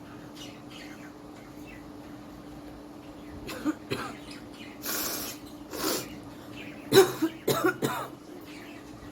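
A woman coughing: a few coughs starting a few seconds in, then a quick run of harsher coughs near the end, the loudest among them. It is a real chest cough from her illness, which she says is worse when lying down.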